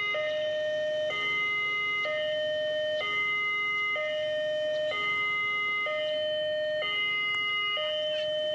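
Electronic level-crossing warning alarm sounding, two tones alternating high and low about once a second.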